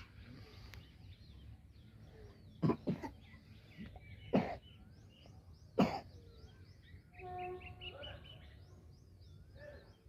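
A person coughing four times in the middle, over continual chirping of small birds. A short held tone with overtones sounds about seven seconds in.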